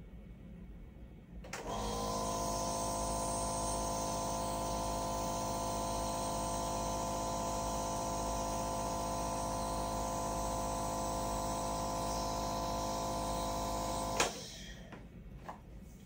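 Nebulizer machine running with a steady hum, delivering a dose of citric acid fog through a face mask. It switches on about a second and a half in and cuts off with a click about twelve seconds later.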